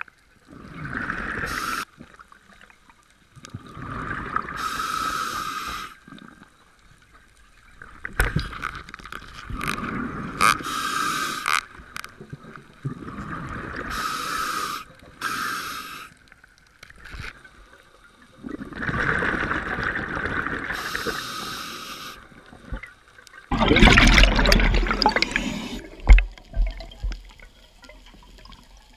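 Scuba diver breathing through a regulator underwater: repeated breaths in and out every few seconds, each a hissing rush of air or a burst of exhaled bubbles, with the loudest rush of bubbles about three-quarters of the way through.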